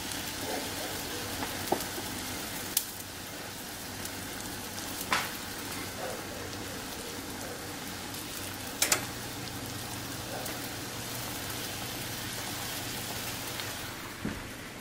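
A stockpot of soup boiling on the stove: a steady bubbling hiss broken by a few sharp pops and clicks.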